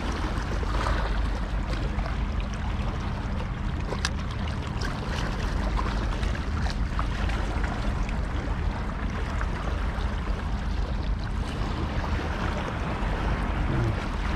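Small sea waves sloshing and splashing against shoreline rocks: a steady wash of water with a low rumble underneath.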